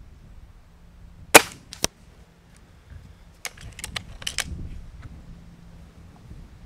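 Gamo Swarm Maxxim .22 break-barrel gas-piston air rifle firing once, a sharp crack followed about half a second later by a fainter crack. A couple of seconds later comes a quick series of mechanical clicks and knocks as the barrel is broken open to cock it.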